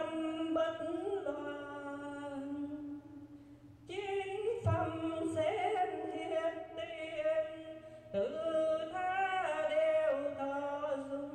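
A woman singing solo and unaccompanied into a handheld microphone, slow and melismatic, in three long phrases with short breaths between them.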